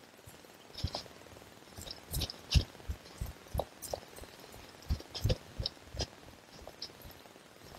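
Footsteps walking through dry fallen leaves on a forest trail: irregular dull thumps of the footfalls with the crisp rustle and crunch of the leaves, several steps a second at times.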